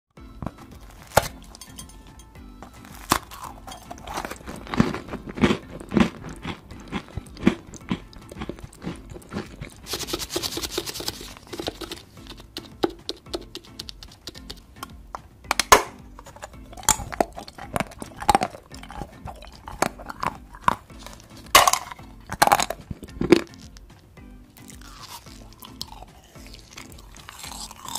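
Close-miked eating: sharp, crisp bites and crunches of a chocolate chip cookie and a hard red telephone-shaped candy, with chewing between the bites.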